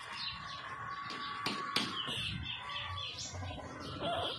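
Birds chirping, with two sharp taps about a second and a half in, as of a tool knocking on bamboo slats.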